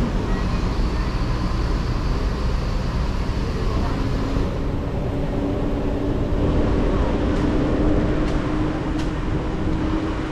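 Car driving slowly, heard from inside the cabin: steady engine and road noise with a low hum that steps up slightly in pitch about halfway through.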